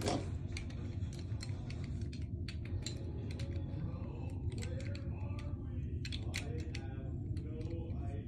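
Small metal tags on a cat's collar clinking lightly and irregularly as the cat moves against the phone, over a steady low rumble.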